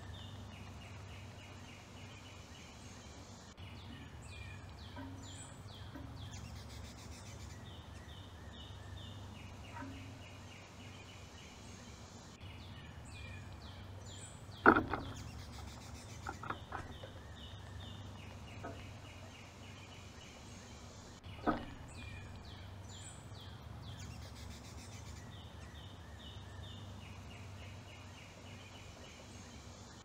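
Songbirds singing in the background, short runs of rapid high notes repeated over and over, over a low steady hum. About halfway through come a few sharp knocks, the loudest of them twice about seven seconds apart: a bird landing and moving on the metal feeder pole next to the microphone.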